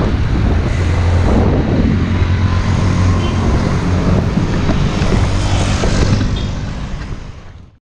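Road traffic noise with wind rushing on the microphone while riding a bicycle along a street; a steady low rumble throughout, fading out near the end.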